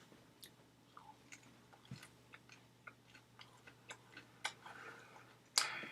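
A person chewing food close to the microphone, with many small mouth clicks and smacks. A short, loud rush of noise comes near the end.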